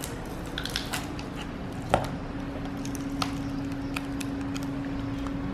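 Small clicks and light crackling as the glued-in battery cells of a late 2013 MacBook Pro are gripped and lifted out of the aluminium case, with one sharper click about two seconds in. A faint steady hum runs underneath from then on.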